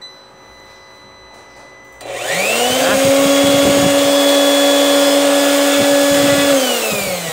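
Small appliance's electric motor, powered from an 800 W sine-wave inverter just reset after an overload trip, spins up with a rising whine about two seconds in, runs steadily for about four seconds, then winds down near the end.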